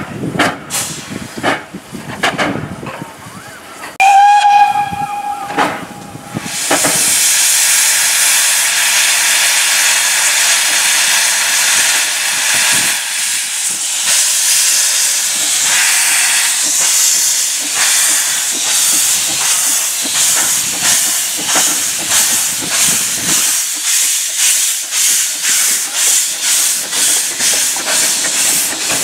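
Vale of Rheidol narrow-gauge 2-6-2 tank steam locomotive pulling away. There is one whistle blast about four seconds in, then a loud steady hiss of steam from its open cylinder drain cocks. Exhaust beats come through the hiss and quicken as it gathers speed.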